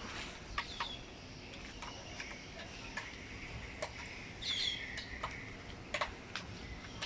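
Scattered light clicks and taps from work on a Scania truck cab's front cover panels. A bird chirps briefly about four and a half seconds in.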